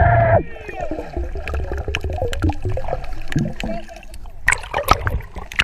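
Water gurgling and churning around the camera, with sharp splashes in the last second or so.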